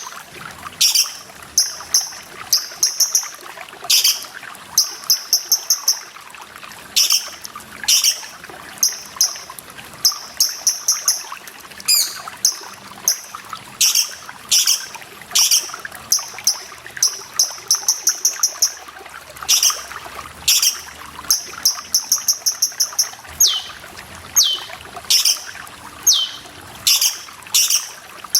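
Cucak cungkok calling over and over with sharp, high notes, often in quick strings of three to six, with a few short falling notes later on, over steadily trickling water.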